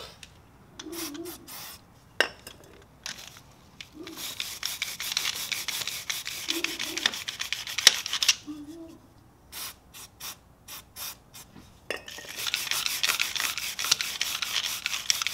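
Chain brush scrubbing a motorcycle drive chain wet with chain cleaner, in quick back-and-forth strokes. It starts about four seconds in, slows to a few separate strokes in the middle, then runs into steady fast scrubbing for the last few seconds.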